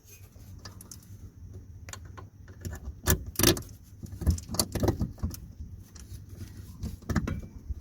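Irregular metallic clicks and clinks as a handbrake cable clamp is fitted and fastened to a car's underbody, with the two sharpest knocks a little after three seconds in.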